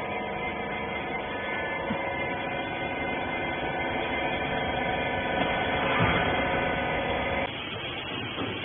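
Clothing baler's machinery running with a steady hum of several fixed tones, which changes abruptly near the end to a rougher, noisier sound.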